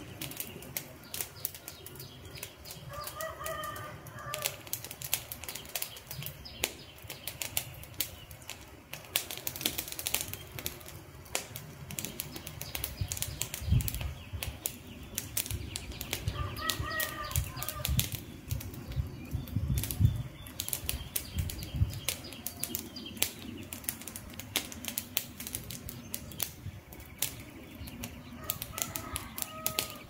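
Wood campfire crackling, with frequent sharp snaps and pops over a soft hiss of burning. Some low rumbling comes in the middle.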